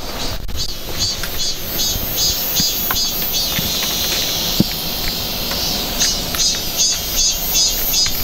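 Cicadas calling in a fast, even series of high pulses, about three a second, with a steady stretch in the middle; occasional scuffs and knocks of boots on rock come through underneath.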